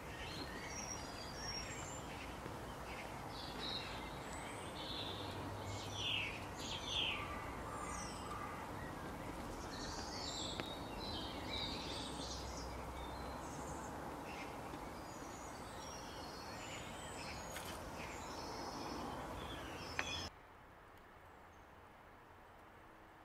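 Outdoor ambience of many birds chirping and calling over a steady background noise. About twenty seconds in, a click comes and then the background drops abruptly to much quieter.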